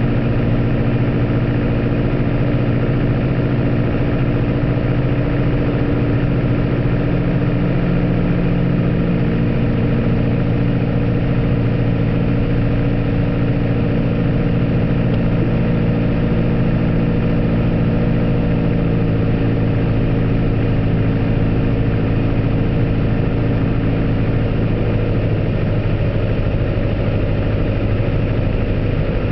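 Piper Archer's Lycoming O-360 four-cylinder engine and propeller droning steadily, heard from inside the cockpit during the landing approach.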